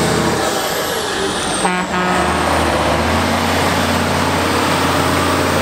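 Heavy off-road trial trucks' diesel engines working hard on a steep climb. About half a second in the sound changes, with a high whine falling in pitch over about a second and a half. From about two seconds on, a truck engine runs with a steady low drone.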